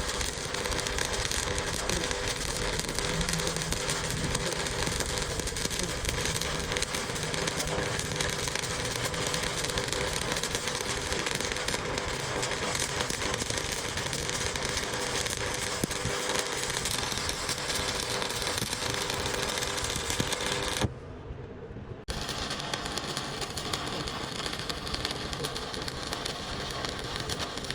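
Continuous crackling noise with a steady hum underneath, cutting out for about a second near the end.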